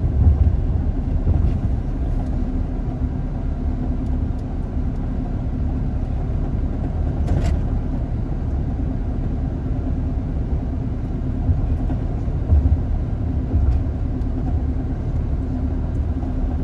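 Steady road noise inside a moving car's cabin at highway speed: low tyre and engine rumble with a steady low hum.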